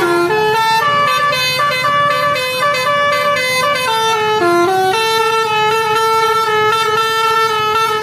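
Tour bus 'basuri' telolet horn playing a melody: a quick run of changing notes, then one note held for about the last three seconds before it cuts off.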